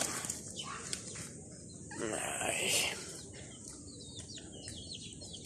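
A white dove's wings fluttering and rustling against the hand that holds it, loudest in a short burst about two seconds in. Faint, quick, falling bird chirps follow near the end.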